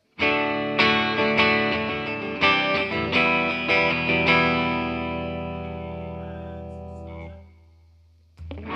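Electric guitar sound-checked through the PA: about eight picked notes in the first four seconds, left to ring and fade away, then damped at about seven seconds. Near the end a louder strummed, distorted chord starts.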